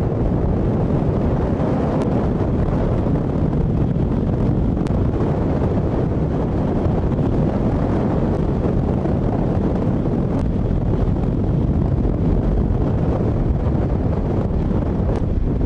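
Wind buffeting the microphone: a steady, low-heavy rush of noise with no let-up, with a few faint clicks.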